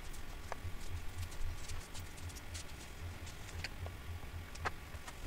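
Computer mouse clicks: a few sharp, irregular clicks about a second apart, over a low hum.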